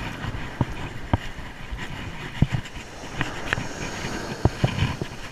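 Steady wind and surf noise on the microphone, broken by scattered sharp clicks and knocks.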